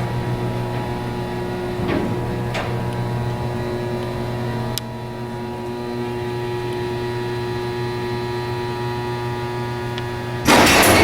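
Montgomery freight elevator's hoist motor running with a steady, many-toned hum as the car travels, with a few light clicks about two to five seconds in. Near the end the door interlock clatters loudly, drowning out the motor.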